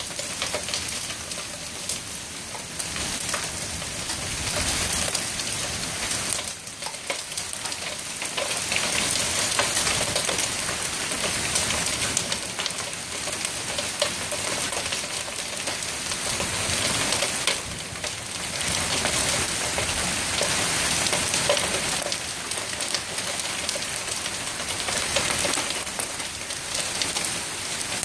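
Heavy hail pelting down: a dense, steady clatter of countless small impacts mixed with the hiss of rain, swelling and easing slightly in waves.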